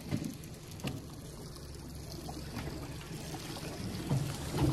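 Water lapping and trickling against the side of a small aluminium boat, over a low steady hum.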